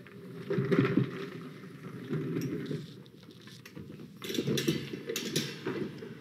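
Irregular knocks, clatter and shuffling as a display mannequin is carried in and set up, with a few sharp clicks near the end.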